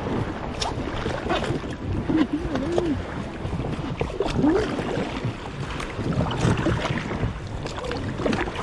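A kayak being boarded and paddled off: water sloshing around the hull with scattered knocks and clatter, and wind buffeting the microphone.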